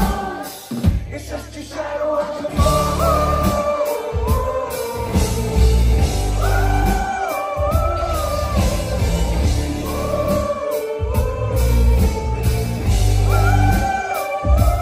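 Live band music played loud, with heavy bass under a sung melody in phrases, recorded from within the audience.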